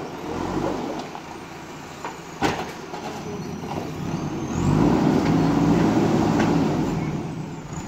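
Diesel engine of a JCB earthmover running, growing louder and deeper about halfway through as it works under load, then easing off near the end. A single sharp metallic knock sounds about two and a half seconds in.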